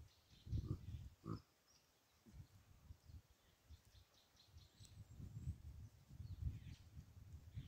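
Hamadryas baboons giving faint, low, short grunts in two clusters, one around the first second and another from about five to seven seconds in. Faint high chirps of birds or insects run through the background.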